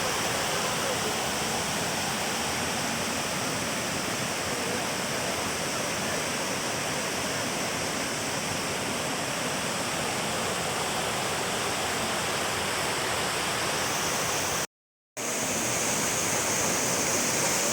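Waterfall's steady rush of falling water, broken by a sudden half-second cut to silence about fifteen seconds in.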